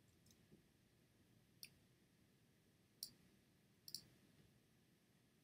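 Faint computer mouse clicks over near silence: single clicks about one and a half and three seconds in, then a quick double click about four seconds in.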